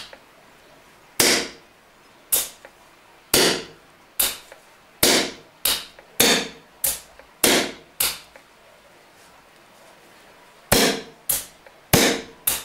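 SNS QE-02 pneumatic quick exhaust valve fired again and again by a hand-worked slide valve, on air from a paintball tank regulated to 5 bar. Each shot is a sharp pop of released air with a short fading tail, about fifteen in all. They come in quick, irregular runs with a pause of a couple of seconds after the middle.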